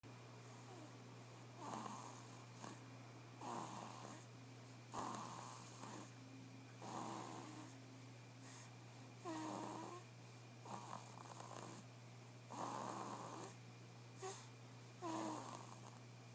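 Sleeping baby snoring: about nine short, faint snoring breaths, roughly one every one and a half to two seconds, over a steady low hum.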